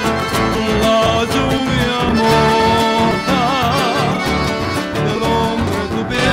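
Live Argentine litoral folk band playing an instrumental passage: accordion carrying the melody over strummed acoustic guitars and a steady bass beat.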